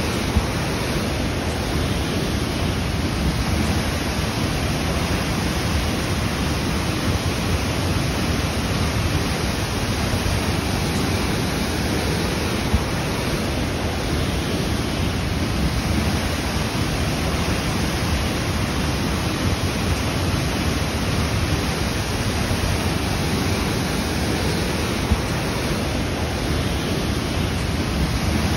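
A waterfall rushing steadily: an even, unbroken wash of falling water.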